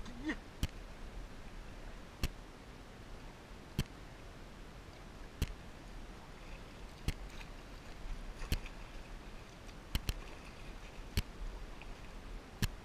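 Kayak paddling: a sharp tick with each paddle stroke, about every one and a half seconds, over a faint steady hiss of water and air.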